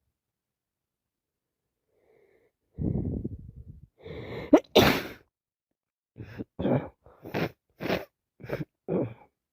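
A woman with a head cold sneezing. After a breathy intake and a short rising 'ah', one loud sneeze comes about five seconds in, followed by six short, sharp nasal bursts about every half second.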